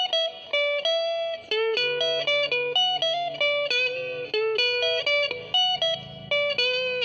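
Electric guitar picking a melodic line of single notes and short double-stops, the notes following one another every fraction of a second with some held longer.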